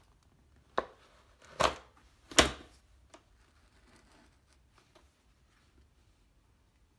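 Three sharp knocks, the third the loudest, as a bundt pan and a plastic cake-carrier lid are flipped over together and set down on the countertop to turn out a cake, followed by faint handling sounds.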